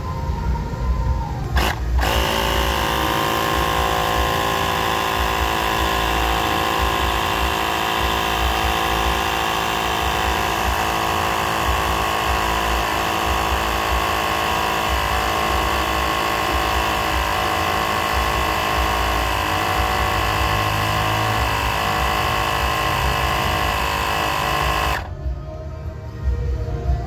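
Mini electric air compressor (tyre inflator) switched on with a click about two seconds in, running with a steady, even motor whine and buzz while it pumps up the tyre, then cut off abruptly near the end.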